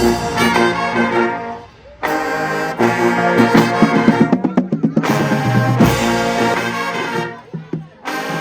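Marching band brass section playing loud, sharply attacked chords and a quick run of short notes, breaking off briefly about two seconds in and again near the end.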